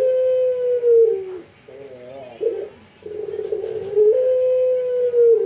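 Puter pelung (Barbary dove) cooing over and over: a rough opening, then a long, steady held note that sags at its end, then a few short wavering notes. The next coo begins about three seconds in.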